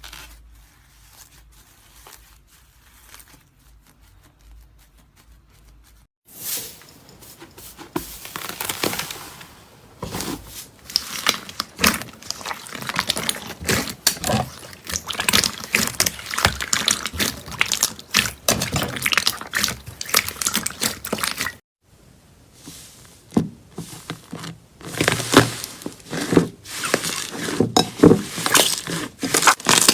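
Slime being squeezed, poked and stretched by hand, giving dense runs of small wet clicks, pops and crackles. It is faint at first, then thick crackling sets in about six seconds in, breaks off briefly a little past twenty seconds, and resumes.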